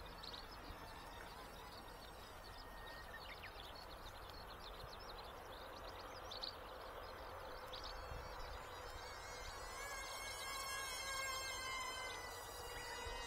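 Faint, high buzzing whine of the WLtoys XK A120 Airbus A380 RC model's electric motors and propellers flying at a distance. The pitch wavers, and the whine grows louder and fuller over the last few seconds.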